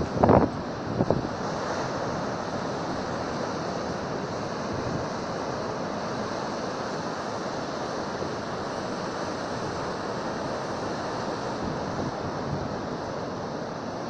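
Storm surf on a rough sea: a steady wash of waves breaking and rushing up the beach. Wind buffets the microphone with a few bumps in the first second.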